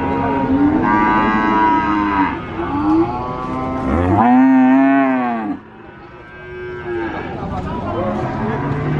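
Several cattle mooing with overlapping calls. The loudest is a long moo that rises and falls in pitch, starting about four seconds in and cutting off about a second and a half later, after which quieter moos go on.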